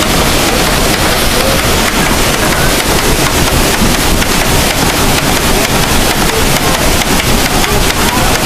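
Water rushing and splashing through a sawmill's wooden water wheel, a loud, steady roar of falling water.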